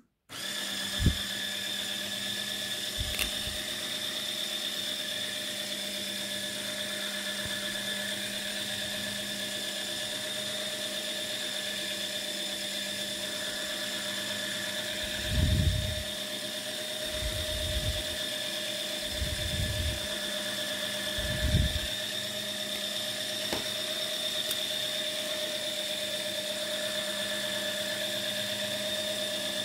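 Small Lego Technic electric motor driving the egg turntable through its gears: a steady whine that starts with a click at the beginning and holds an even pitch throughout. Four dull low thumps come in the middle.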